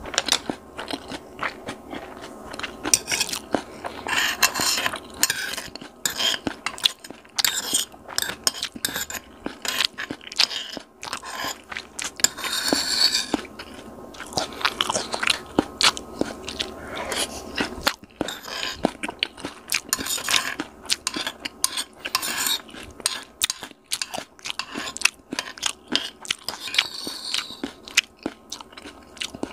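Close-up crunching and chewing of shredded cabbage and noodles in chili sauce, with a metal fork scraping and clinking against a glazed bowl.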